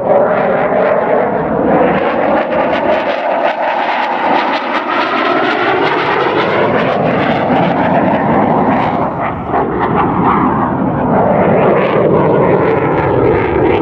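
Loud, continuous engine noise from a CF-18 Hornet fighter jet's twin turbofans as it flies overhead. The tone slowly sweeps down and back up as the jet moves across the sky.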